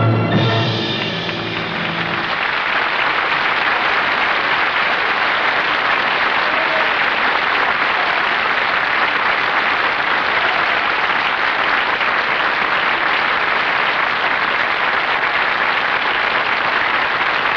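The final chord of a piano and orchestra rings out and dies away over the first two seconds, then an audience applauds steadily.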